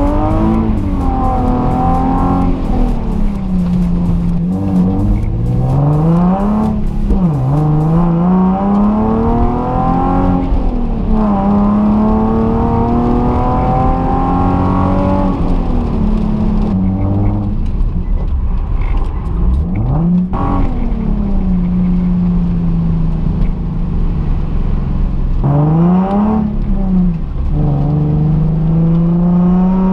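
Nissan 370Z's 3.7-litre V6 with its catalytic converters deleted, heard from inside the cabin while driving. The engine pitch climbs and drops several times as the car accelerates and changes gear.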